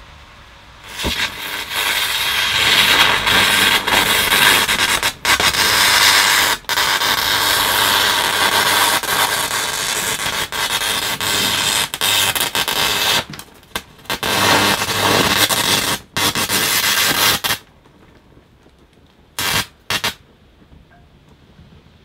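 DC electrical arcing in a burning, coiled power lead carrying about 13 amps: a loud, harsh hiss that sputters and drops out briefly several times, then cuts off, with two short bursts of arcing near the end. The arcing keeps going rather than blowing out once because the supply is DC.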